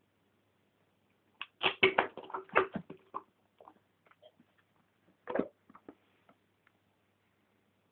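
Dog working at a birthday present and its wrapping paper. A burst of crinkling and knocking comes about a second and a half in, and another short one just past five seconds.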